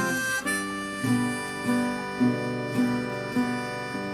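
Background music: a harmonica playing held chords over an acoustic guitar picking a steady beat, about two notes a second.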